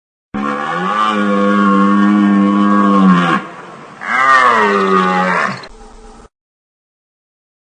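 A large wild animal calling twice: one long, steady call of about three seconds, then a shorter call that rises and falls in pitch. It cuts off abruptly about six seconds in.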